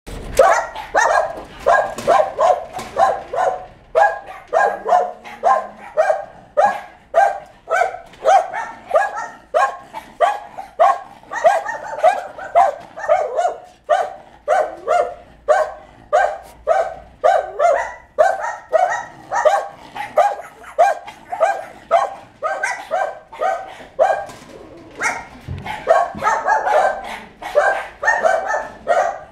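Caged dogs barking over and over in a steady run, about two barks a second without a break.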